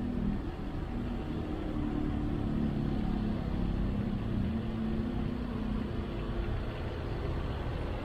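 Car driving on a highway: a steady rumble of engine and tyre noise.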